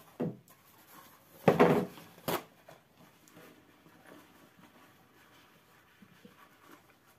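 Paper towel being pulled from the roll and handled, with a loud rustling rip about a second and a half in and a sharp knock just after, then soft rustling as the sheets are laid into the bottom of a glass tank.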